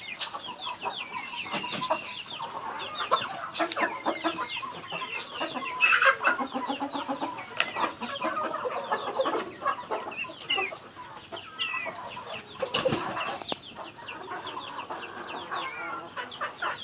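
A flock of country chickens clucking and calling, with a steady stream of short, high chirps over lower clucks and a few sharp knocks.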